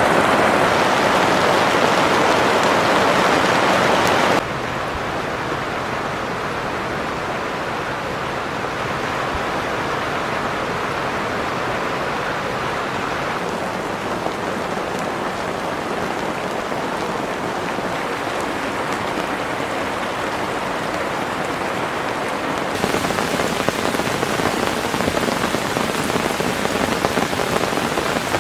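Heavy rain falling and pattering steadily. It turns abruptly quieter and duller about four seconds in, then abruptly louder again about five seconds before the end.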